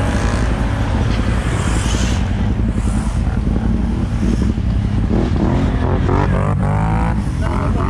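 ATV engines running steadily under load, with one revving up in a rising pitch from about five to seven seconds in as a quad passes close by.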